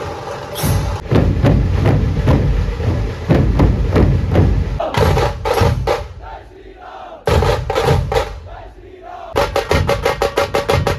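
Dhol-tasha drumming by a Pune dhol-tasha troupe (pathak), with crowd voices shouting. The beat drops back briefly past the middle, then ends in a run of fast, even strokes, about seven a second.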